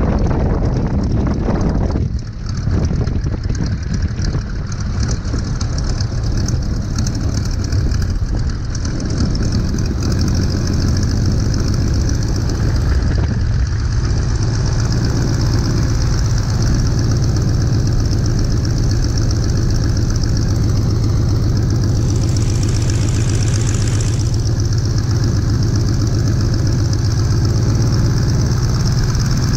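Boeing Stearman biplane's radial engine running steadily at low power, a constant deep drone close to the microphone, with a brief hiss about two-thirds of the way through.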